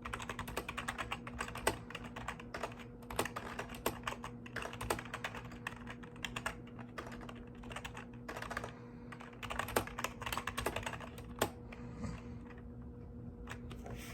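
Typing on a mechanical keyboard: rapid, uneven key clicks that thin out to a few scattered keystrokes near the end, over a faint steady hum.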